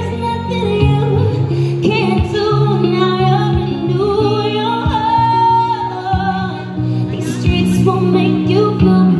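A woman singing live into a microphone, accompanied by a guitar and amplified through a PA, with long held notes that waver in pitch.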